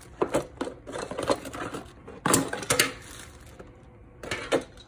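Irregular clicks, knocks and clatter of a phone-holder kit's hard parts being handled as the package is opened and unpacked, loudest about halfway through and again near the end.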